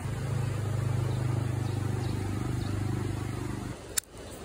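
A motor vehicle's engine running at a steady low pitch over the rush of a shallow river, cutting off abruptly near the end. Then a single sharp crack as a roasted peanut shell is snapped open by hand.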